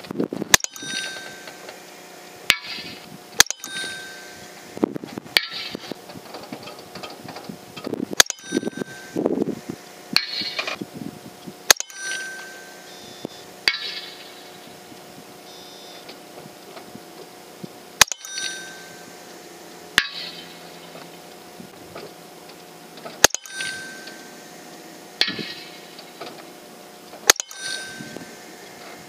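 Western Airguns Rattler .357 PCP air rifle firing slugs at steel targets 300 yards out: about a dozen sharp reports a few seconds apart. Most are followed under a second later by a faint ringing ping from the steel being hit.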